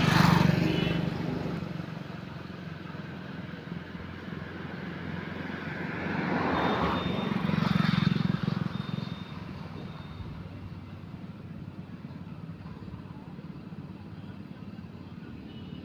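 A low engine drone that swells right at the start and again about six to nine seconds in, then settles into a quieter, steady rumble.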